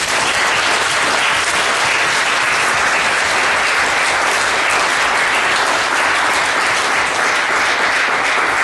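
Audience applauding steadily, a dense sustained clapping of many hands.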